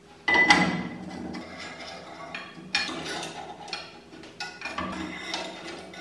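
A metal disc clanks against the steel housing of an old washing-machine motor about a third of a second in and rings briefly, followed by more knocks and scraping of metal on metal as the disc and bolts are fitted.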